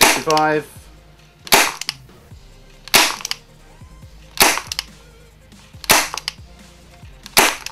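HFC 104 Beretta non-blowback gas airsoft pistol firing five single shots, about one every second and a half, each a sharp gas pop with no slide clack.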